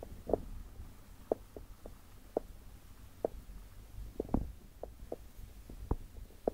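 Aquarium water bubbling: irregular short plops, about two a second, over a low steady rumble.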